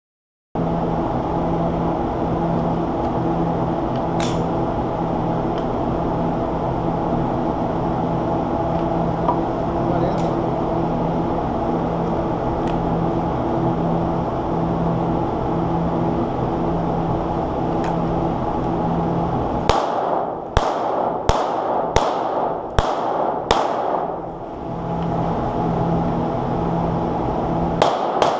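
Pistol shots from a Taurus PT 838 .380 ACP semi-automatic: about eight in quick succession, roughly two a second, starting about two-thirds of the way in, then two more right at the end, each ringing in the enclosed range. Before the shots there is a steady drone with a pulsing low hum.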